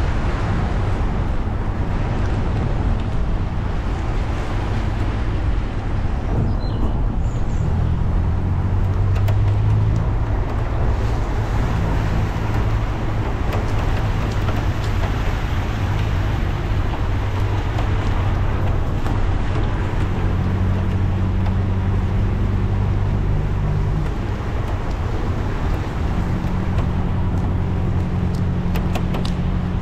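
A car driving on a wet road in the rain: a steady low engine hum that shifts pitch several times as the speed changes, over a continuous hiss of tyres and rain.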